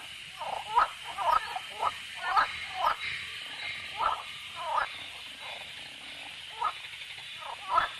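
A run of short animal-like calls, coming irregularly and often in quick clusters, over a steady high hiss.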